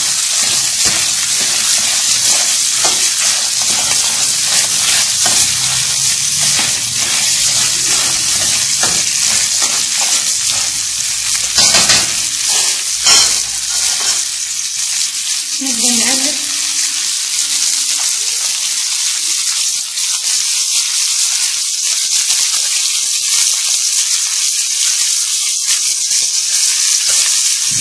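Whole crayfish frying in hot oil in a metal pan, sizzling steadily, stirred with metal tongs. Two sharp knocks about 12 and 13 seconds in.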